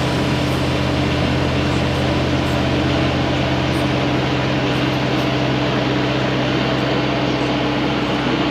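Takeuchi TB250-2 mini excavator's diesel engine running steadily, a constant hum.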